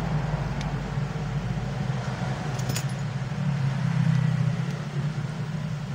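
Steady low background hum with a few faint small metallic clicks from a screwdriver and small parts on an iPhone 5S screen assembly.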